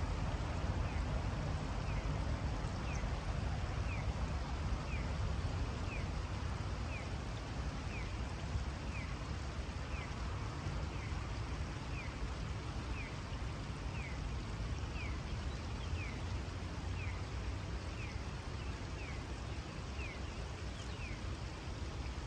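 Shallow river water running steadily over stones, under a low rumble. A small bird's thin, falling call repeats about once a second.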